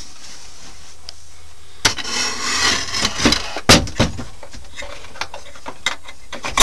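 Rustling and a series of knocks and clicks as a hand rummages in a small storage compartment and handles its little wooden door. The loudest knocks come about three and a half seconds in, and there is a sharp click at the end.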